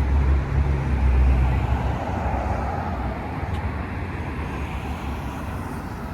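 Street traffic: a motor vehicle's low rumble passing close, loudest in the first two seconds, then fading into steady road noise.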